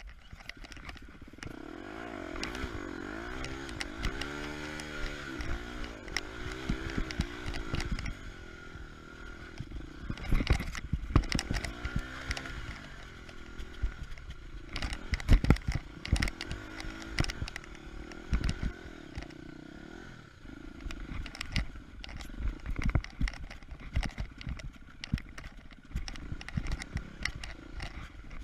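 Single-cylinder four-stroke engine of a 2016 KTM 250 EXC-F enduro motorcycle revving up and down repeatedly as it is ridden, with knocks and clatter from the bike over rough ground.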